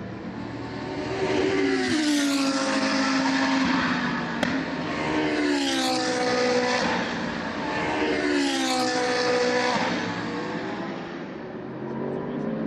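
GT3 race cars passing at speed one after another, three in all, each engine note dropping in pitch as the car goes by.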